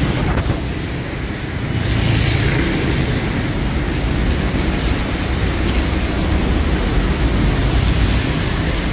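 Steady, loud wash of rain and road traffic, heavy in the low end, with no distinct events.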